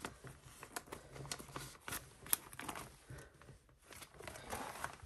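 Plastic binder pocket pages and photocards rustling and clicking as cards are slid into the sleeves and the page is handled. The sound is faint and irregular, with one sharper click about two and a half seconds in.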